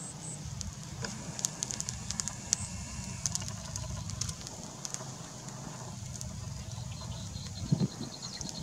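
Octopus and squid crackling and popping on a hot stone slab, the sharp pops coming thickest one to three seconds in, over a low steady rumble. Near the end a quick run of faint high ticks and a brief low thump.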